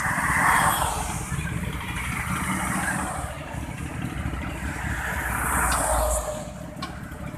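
Sport motorcycle engines running and pulling away over steady road traffic noise, with vehicles passing close, the loudest about half a second in and again around six seconds in, the second a van driving right past.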